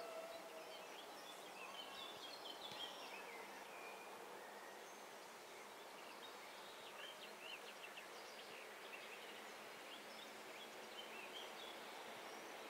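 Faint, scattered bird chirps over a quiet outdoor background, with the last of a distant train horn fading out at the very start.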